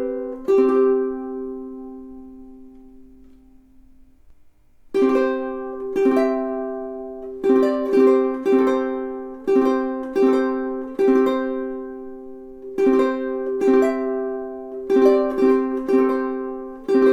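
All-solid koa jumbo tenor ukulele being strummed. A chord is left to ring and fade for about four seconds, then a steady strummed chord pattern starts again.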